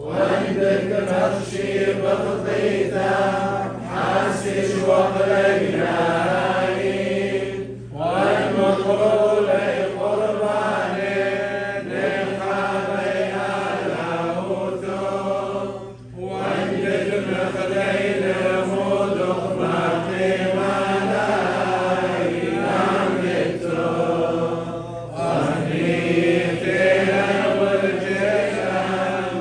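Liturgical chant of the Chaldean Catholic rite, sung in long phrases with a brief breath between them about every eight seconds.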